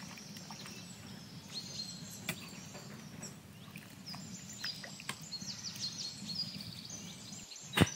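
Birds chirping and twittering over a steady low background haze, with a few light clicks of a metal spatula stirring potato slices in a karahi of water. A single sharp knock near the end is the loudest sound.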